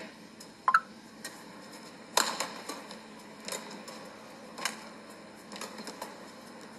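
Badminton rally: sharp racket hits on the shuttlecock about every second and a quarter, with a brief shoe squeak on the court floor about a second in.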